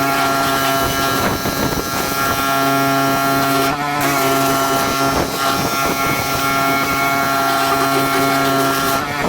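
Engine-driven pressure washer running steadily, with the hiss of the water jet over the engine. The jet's hiss stops briefly about four seconds in and again near the end while the engine runs on.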